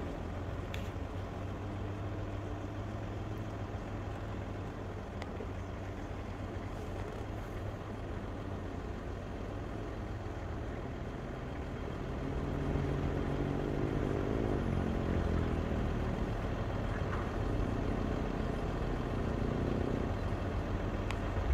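Jeep Gladiator Rubicon engine working as it crawls up a steep dirt hill: a steady low hum that grows louder about halfway through, with a drone that rises and falls as the revs change.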